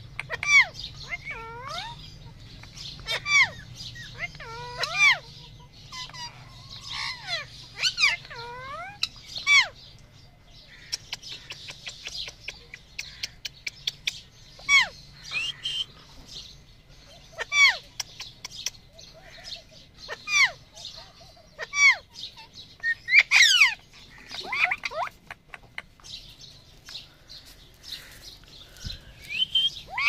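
Alexandrine parakeets calling in short, shrill chirps and squawks. The calls come in clusters with brief pauses between them, and the loudest run comes about two-thirds of the way through.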